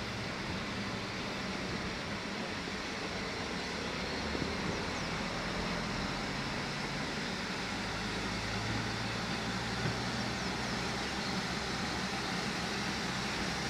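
A steady mechanical rumble under an even hiss, with a low hum that grows stronger for a couple of seconds about eight seconds in.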